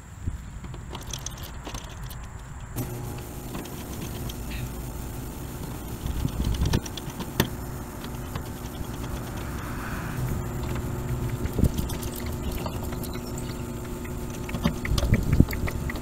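Scattered small clicks, taps and rattles of hands working the sheet-metal panel cover and screws of an outdoor air-conditioner condenser, as the cover is fastened back on. A steady low hum comes in about three seconds in and carries on underneath.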